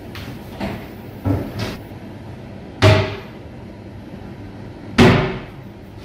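Wooden upper kitchen cabinet doors being opened and shut: a few light knocks, then two loud bangs about two seconds apart as doors close against the cabinet frames.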